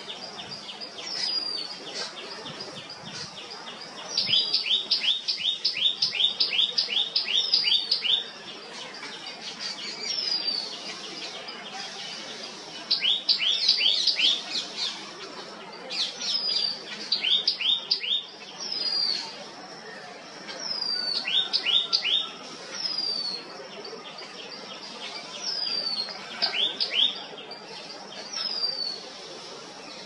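Asian green bee-eater calling: bursts of rapid chirps, each a quick run of short falling notes, repeated several times; the longest burst lasts about four seconds. A thinner, higher falling note recurs every two or three seconds between the bursts.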